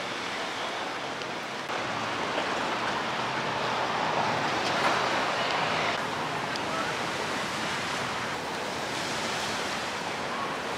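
Waves washing on a lake shore with wind across the microphone: a steady rushing noise that swells a little about halfway through.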